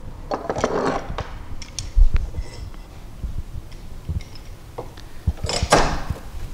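Timber being handled and knocked down on a wooden workbench, with a loud thump about two seconds in, followed by clicks and scrapes of a steel bar clamp being slid onto the workpiece and tightened.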